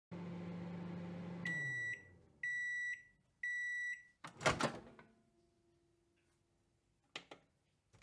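Microwave oven running with a low hum that winds down as the timer runs out, then three beeps about a second apart marking the end of cooking. A loud sharp clack follows, then a few faint clicks near the end.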